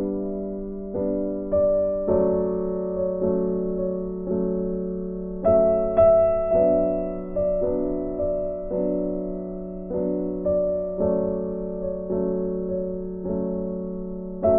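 Background music: a slow keyboard melody, one note or chord struck about every second and left to ring.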